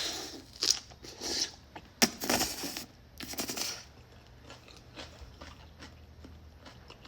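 Close-miked eating of buldak noodles: a run of short, wet mouth noises from chewing and slurping, about five in the first four seconds, then only faint small clicks.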